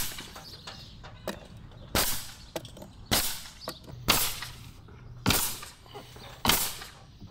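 DeWalt pneumatic coil siding nailer firing nails into lap siding boards: six sharp shots, each with a brief tail, roughly one a second, with a few small clicks between.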